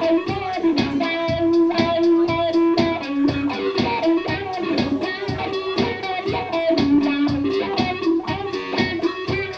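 Electric guitar played live: a steady, quick rhythm of strummed strokes with held notes ringing over it.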